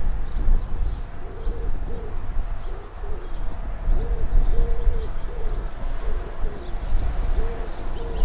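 A pigeon cooing: short, low notes repeated in phrases of several coos. Underneath is a steady low rumble, with faint chirps of small birds.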